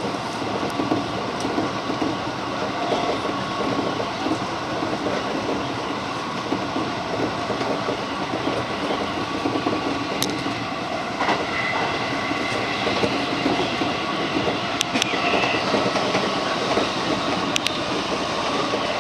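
JR 205 series electric commuter train running at speed, heard from inside the car: a steady rumble of wheels on rail with a faint steady whine. A few sharp clicks come in the second half.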